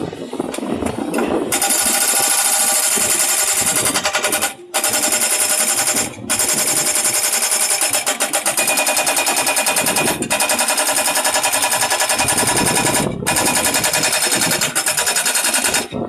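Hydraulic breaker on a Kubota U50 mini excavator hammering on concrete piles, a rapid rattle of blows in long runs. It starts about a second and a half in and stops briefly three times, under the running diesel engine of the excavator.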